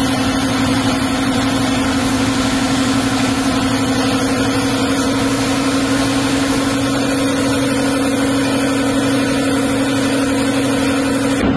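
Compressed-air paint spray gun hissing steadily as it sprays primer onto a car bumper, over a constant motor hum.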